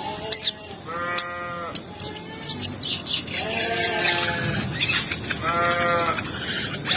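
Sogon bird calls from a lure recording: about four nasal, bleating calls, each about half a second long, with a few sharp high chirps near the start and a rising hiss behind them.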